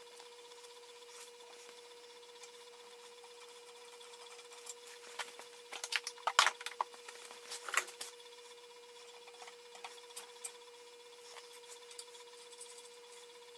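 Hand tools clicking and scraping on a steel part clamped in a bench vise: a quiet stretch, then a cluster of sharp metal clicks about halfway through, over a faint steady hum.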